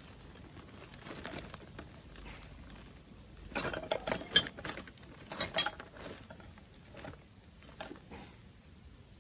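Clinks and knocks of metal parts and tools being handled, with a cluster of sharp knocks from about three and a half to six seconds in and a few single ticks after.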